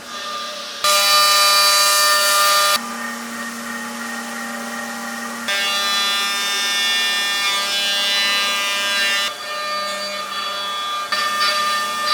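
CNC milling machine cutting metal: the spindle and cutter whine with a high, many-toned ring over a hiss of cutting, switching abruptly to a different pitch and loudness several times.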